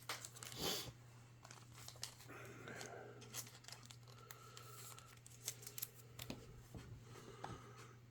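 Trading cards being handled at close range: faint rustling and crinkling with scattered small clicks and ticks, over a faint steady hum.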